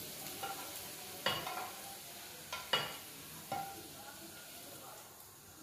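Potato, onion and cabbage sizzling in oil in a frying pan while a spatula stirs them, with a few sharp knocks of the utensil against the pan.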